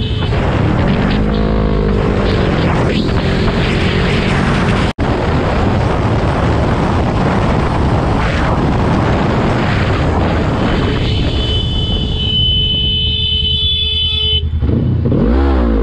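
Wind noise over the microphone and a motorcycle engine running, its pitch rising and falling about a second in and again near the end, with a brief dropout about five seconds in. A horn sounds steadily for about three seconds near the end, as a car cuts in close beside the bike.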